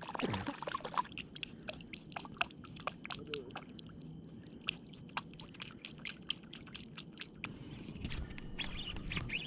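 A hand splashing and flicking water at the lake surface close by, with irregular small splashes and drips, several a second. The splashing stops near the end and a low rumble of handling follows.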